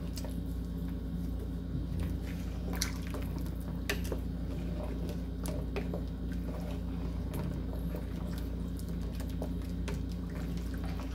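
Lamb stew in tomato sauce being stirred with a wooden stick in a large aluminium pot, the liquid sloshing, with a few light clicks of the stick against the pot. A steady low hum runs underneath.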